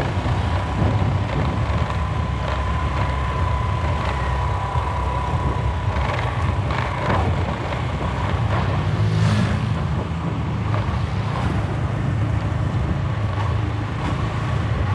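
Wind rumbling on the microphone of a motorbike-mounted camera while riding, over the scooter's engine and road noise. A thin steady whine runs through about the first six seconds.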